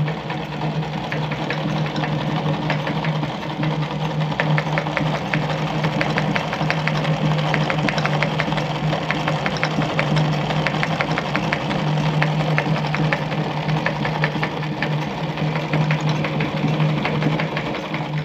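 Singer 319K zigzag sewing machine running steadily while stitching a built-in decorative pattern: an even motor hum with fast, continuous needle clatter.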